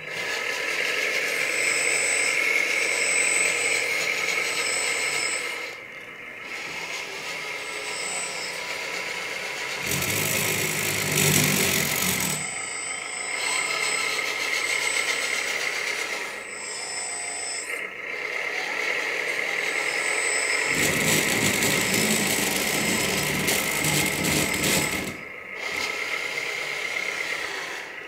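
1/14 scale LESU hydraulic RC road roller in operation: a steady high whine runs throughout, with louder stretches of mechanical running noise about ten seconds in and again from about twenty-one to twenty-five seconds as its motors and hydraulics are worked.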